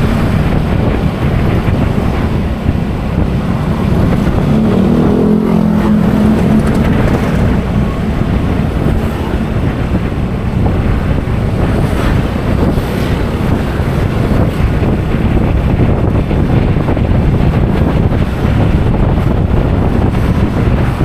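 Motorbike riding through town traffic: wind buffeting the microphone over the bike's engine, a loud steady rumble. About five seconds in, a pitched engine note rises over it for a couple of seconds.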